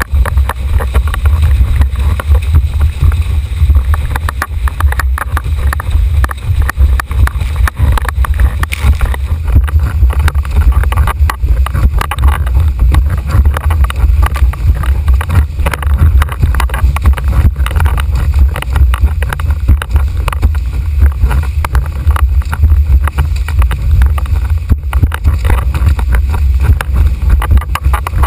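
Heavy wind buffeting on the microphone of a boom-mounted action camera on a formula windsurf board planing at speed, over the continual rush and slap of water and spray against the board. The higher hiss drops away about nine seconds in.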